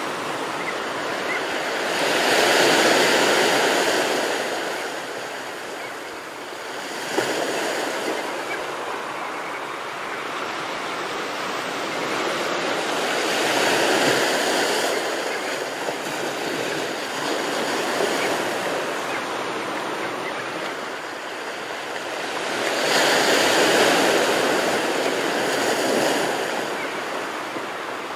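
Ocean surf breaking and washing ashore, the rushing noise swelling with each breaking wave about every ten seconds and easing between. A single short click about seven seconds in.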